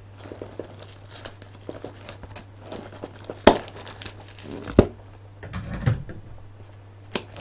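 Cardboard box being torn by hand to make a hole in it, with crinkling and tearing of the packaging and two sharp knocks about three and a half and five seconds in.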